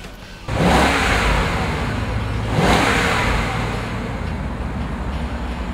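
A 2002 Jaguar XK8's 4.0-litre V8 starting: it catches suddenly about half a second in and flares up, rises again briefly a couple of seconds later, then settles to a steady idle.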